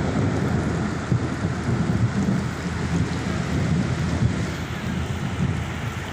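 Heavy rain with a continuous low rumble of thunder during a thunderstorm.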